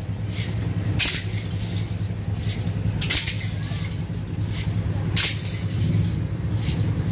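Flagellants' whips slapping against bare backs, a sharp crackling strike about every two seconds with a few smaller clatters after each, over a steady low hum.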